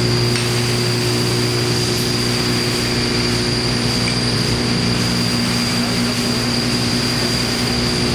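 Large vibratory loader table running: a steady, even hum with the mass of cylindrical parts on it rattling against each other and the side rail as they recirculate and feed toward the exit track, with a thin steady high tone above.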